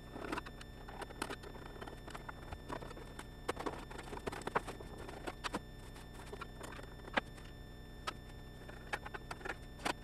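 Scattered light clicks and knocks of hard plastic and a screwdriver as a touchscreen LCD monitor's plastic back housing is unscrewed and taken apart.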